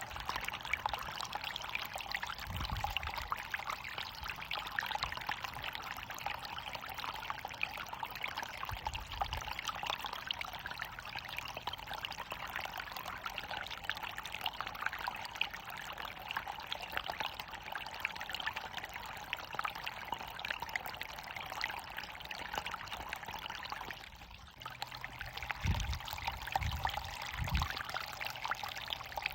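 Running water falling and splashing steadily, as from a small waterfall. The flow dips briefly about three-quarters of the way through, and a few short low rumbles come and go under it.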